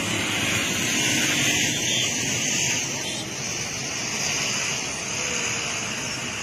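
Steady road-traffic noise from a line of vehicles: an even hiss and rumble with no distinct events, easing slightly in level after about three seconds.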